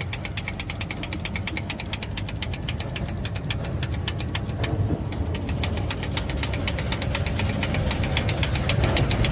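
An engine idling steadily, with a low rumble and a rapid, even ticking.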